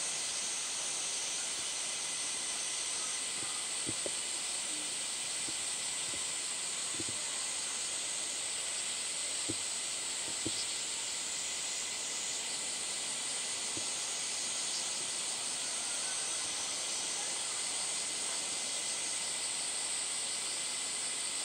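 Summer cicada chorus: a steady, high, sizzling hiss that holds unchanged throughout, with a few faint soft clicks scattered through it.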